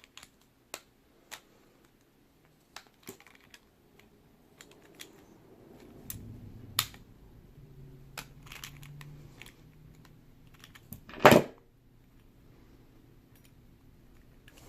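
Scattered small clicks and taps of a brass safe deposit box lock and its loose parts being handled, with one louder clatter about eleven seconds in.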